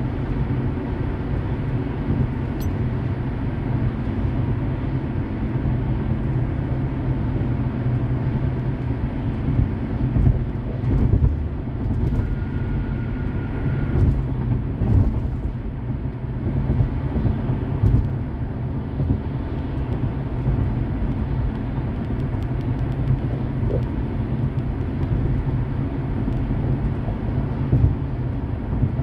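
Road noise inside a car driving at freeway speed: a steady low rumble of tyres and engine, with a few brief thumps.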